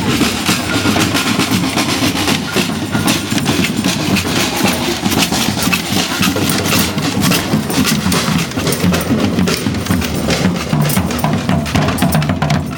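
Drums playing steadily, snare and bass drums beating together, as from a marching band.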